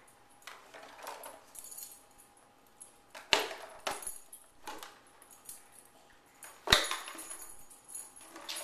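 Plastic bottles holding popcorn being pawed and nosed across carpet by dogs: the plastic crinkles and clicks and the popcorn rattles inside. Two sharp knocks come about three and six and a half seconds in.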